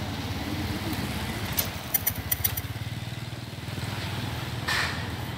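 Vehicles driving past close by on a street, their engines running with a steady low pulsing. A few sharp clicks come about two seconds in, and a brief hiss near the end.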